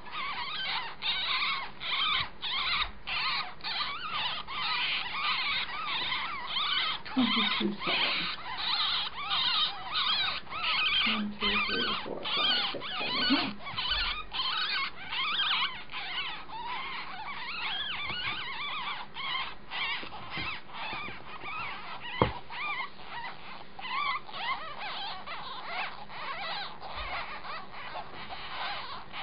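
A litter of nine-day-old kits squeaking continuously, many rapid high-pitched squeaks overlapping, with a single sharp tap about 22 seconds in.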